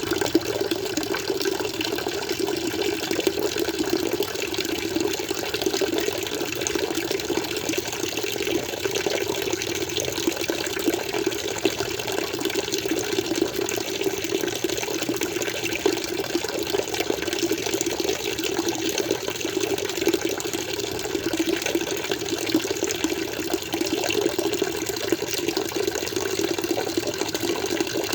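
Water flowing in an aquarium, a steady, unbroken stream with no pauses or changes.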